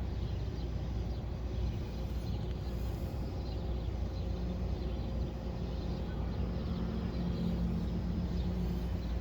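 Chevrolet 305 small-block V8 running steadily at idle, a low, even engine sound that grows a little stronger about six seconds in.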